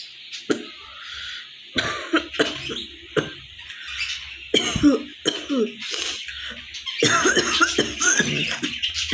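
A woman coughing repeatedly in short fits of a few coughs each. The coughs come closer together near the end.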